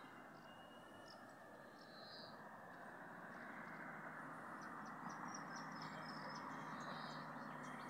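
Steady rushing outdoor background by a flooded river, growing a little louder about a third of the way in, with scattered faint bird chirps.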